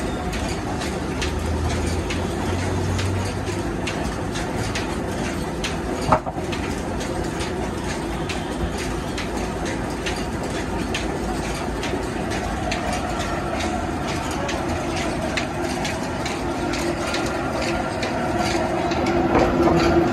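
Sawmill band-saw machinery running steadily with a rattling mechanical noise, one sharp knock about six seconds in. Near the end a louder, steadier hum comes in.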